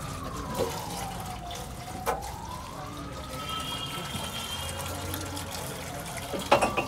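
Used engine oil draining from a car's oil pan in a thin steady stream, pouring into a drain tray below. A thin tone slides down and back up over the first few seconds. A few light knocks sound through it, and a sharp clatter near the end is the loudest sound.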